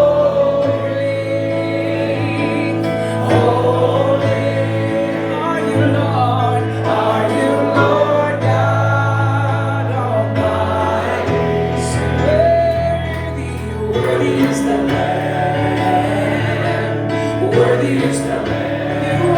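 Worship band with a group of voices singing a slow gospel song over sustained bass chords.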